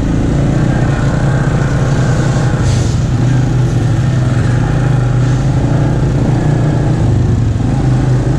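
ATV engine running steadily at a low, even pitch, heard from on board while riding a dirt trail.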